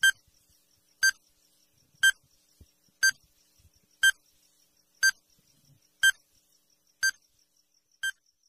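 Countdown timer sound effect: a short electronic beep once a second, nine in all, the last a little fainter, over a faint high ticking at about four ticks a second.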